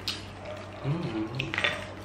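Eating sounds at a table: a click of metal chopsticks near the start, then a short hummed voice with wet mouth clicks from about a second in.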